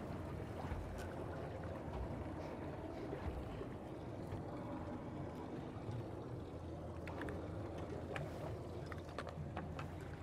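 Steady wash of choppy water against the hull of a small boat drifting in a swell. A few light clicks come near the end.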